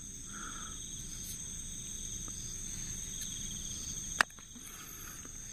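Night insect chorus: crickets trilling steadily at several high pitches, with one sharp click about four seconds in.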